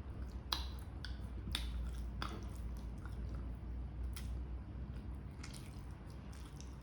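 A person chewing spicy adobo chicken livers and gizzards close to the microphone, with wet mouth clicks and smacks at uneven intervals, about six in all.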